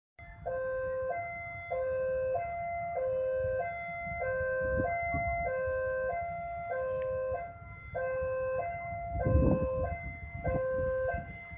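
Level-crossing warning alarm sounding its electronic two-note chime, a low and a high note alternating steadily, each held just over half a second. A low rumble of traffic runs underneath and swells loudest about nine seconds in.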